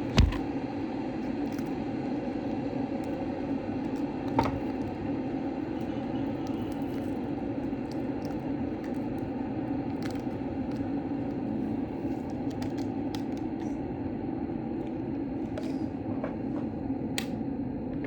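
A steady rushing noise with a sharp click at the start, another about four seconds in, and a few faint ticks.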